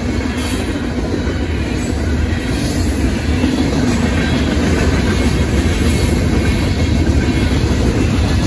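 Union Pacific manifest freight train's cars rolling past through a grade crossing: loud, steady noise of steel wheels running on the rails, growing a little louder about two seconds in.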